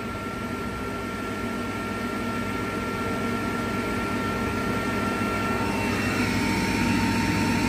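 Refrigerant recovery machine running steadily, drawing the refrigerant out of a system whose compressor has died. It makes a steady machine drone with a thin, high, even whine on top, and grows slowly louder.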